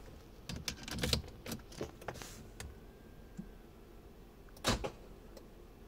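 Keys and key fob rattling and clicking as the key is put into a C5 Corvette's ignition, a quick run of small clicks and jangles, then one louder, sharper click later on.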